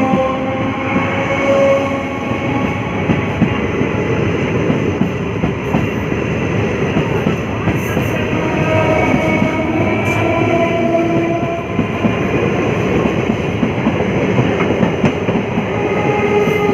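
Local passenger train running steadily past a station platform: a loud, continuous rattle of wheels over the rails. Several steady tones drift in and out above the rattle.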